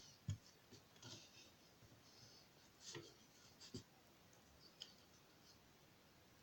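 Faint, irregular scraping and light taps of a stick stirring glue and water in a bowl.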